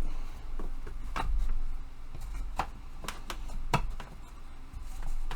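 Irregular clicks and knocks of tool-rack panels being handled and pushed together, their tabs seating into the slots, with low rumble from handling on the bench.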